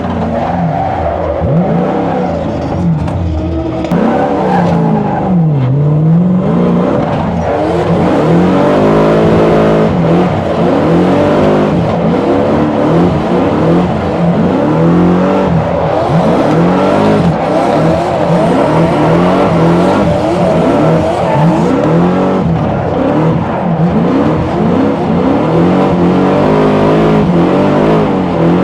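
BMW 4.6-litre V8 of a drift car revving hard, its pitch swinging up and down over and over, with tyres squealing and skidding through the drift. Heard from inside the car.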